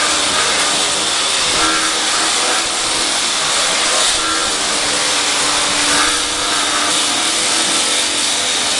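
Automatic paving-block machine running: a loud, steady mechanical noise with a faint hum that wavers in pitch underneath.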